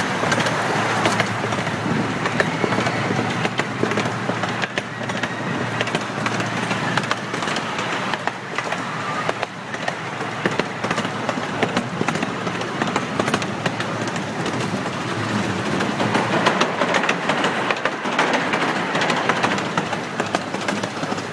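Amusement-park ride train running along its track, heard from aboard: a steady rumble of the cars with the wheels clicking over the rail joints.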